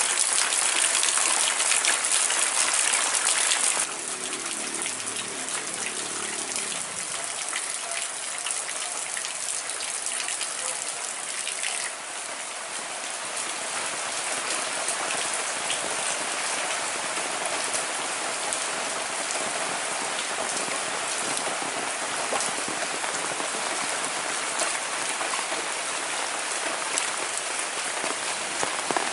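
Heavy rain falling steadily on village roofs and ground, a dense even hiss of drops. It drops suddenly in loudness about four seconds in, then carries on steadily.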